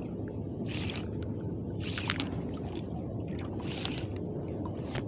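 Steady low rumble on a small fishing boat at sea, with a short hissing splash every second or two and a few faint clicks.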